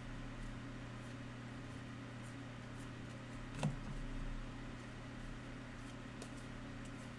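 Steady low hum, with a few faint clicks and one sharper tick about three and a half seconds in, as a stack of trading cards is handled and flipped through.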